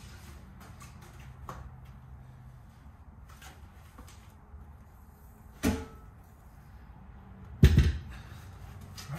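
A trailer axle assembly with brake drums being carried and set down on a rubber-matted garage floor: faint handling clicks, a sharp knock about halfway through, then a heavy metal thud with a brief ring near the end as the axle is lowered to the floor.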